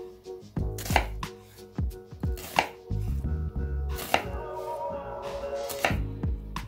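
Chef's knife slicing through a peeled half onion and knocking on a wooden cutting board: a series of sharp cuts at uneven intervals.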